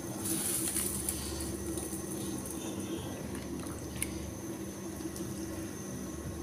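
Hands sloshing and splashing pieces of red snapper in a plastic basin of water, loudest in the first second and a half, with a few small clicks and a sharp tick about four seconds in. A steady low hum runs underneath.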